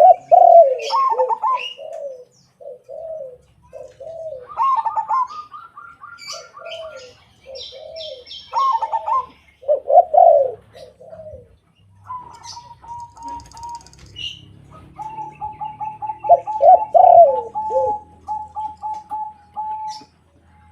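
A zebra dove and a white spotted dove cooing in turn. Deeper rolling coos alternate with long runs of rapid, evenly spaced short coos, and small birds chirp briefly at a higher pitch.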